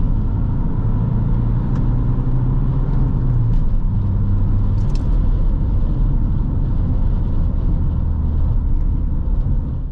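Four-cylinder turbodiesel engine of a 2005 Opel Astra 1.9 CDTI running, heard as a low, steady drone whose pitch settles a little lower after a few seconds.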